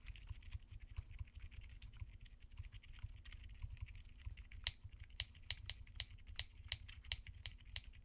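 Quiet typing on a mechanical keyboard fitted with Akko Penguin silent tactile switches, then, about halfway through, Akko Fairy silent linear switches. Soft, muffled keystrokes come in a quick patter, and the later ones are a little sharper.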